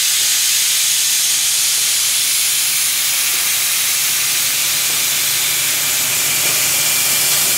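Steady hiss of mist coolant spraying at a rifle barrel's chamber as a Hardinge HLV CNC lathe bores it, with a low steady hum of the lathe underneath.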